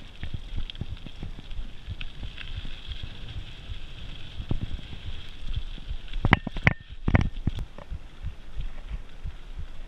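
Mountain bike rolling over a rough dirt trail: wind buffeting on the handlebar-mounted camera and a run of low bumps and rattles from the bike and mount, with a short burst of louder knocks a little past halfway.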